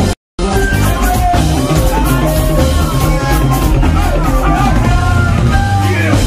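Loud live band music with drums and a singer. The sound drops out completely for a moment just after the start, at a splice between two clips.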